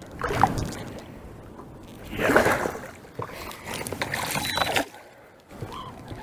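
Water splashing and sloshing at the side of a small fishing boat in three loud bursts as a hooked crappie is fought near the boat, with a lull shortly before the end.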